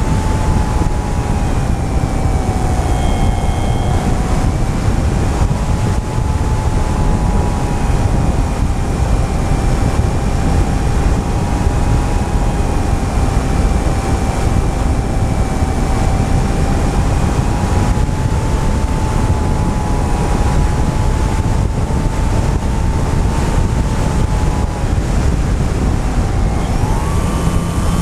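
Motor and propeller whine of an FPV model aircraft, heard from its onboard camera, under heavy wind noise on the microphone. The whine holds a steady pitch with slight wavering, then rises near the end as the throttle goes up.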